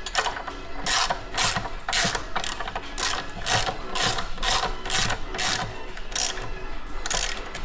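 Hand ratchet wrench worked in quick back-and-forth strokes, about two a second, each stroke a short burst of ratcheting clicks.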